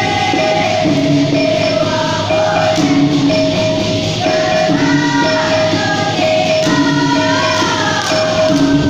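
Dikir barat music: voices singing over a steady repeating accompaniment of held notes, a low note returning about every one and a half seconds, with light jingling percussion.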